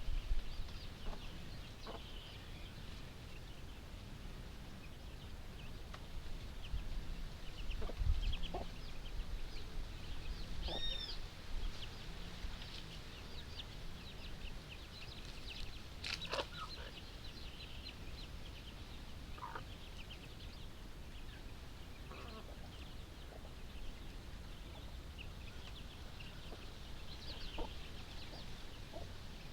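Chickens clucking softly with many short, high calls scattered throughout as they feed on termites, one louder call near the middle, over a low rumble.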